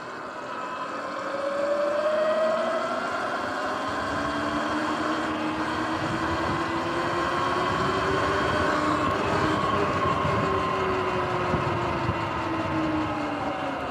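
Sur-Ron X electric dirt bike's motor whining, several tones rising over the first couple of seconds as it speeds up, then holding steady and dropping again near the end as it slows. Rough wind noise runs underneath.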